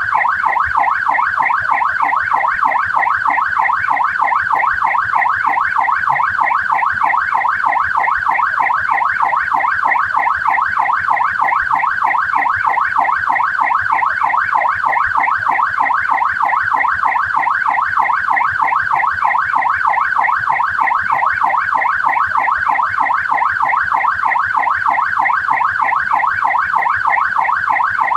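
Australian police car siren sounding continuously in a fast yelp, its pitch sweeping rapidly up and down several times a second at a steady, even pace.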